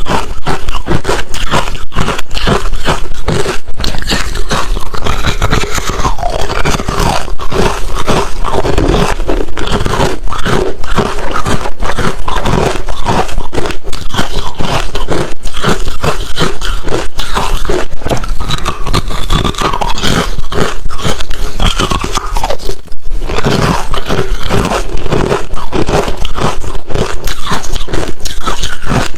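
Close-miked crunching of hard refrozen crushed ice being bitten and chewed: a dense, unbroken run of loud crunches with a brief lull about two-thirds of the way through.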